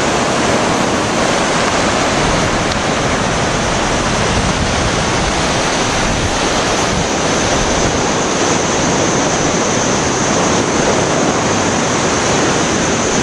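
Steady, loud rushing noise of Atlantic Ocean waves, going on without a break.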